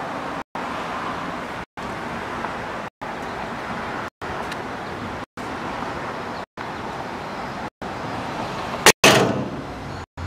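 Steady mechanical running noise, cut by brief drop-outs to silence about every second and a quarter, with a sharp loud bang about nine seconds in.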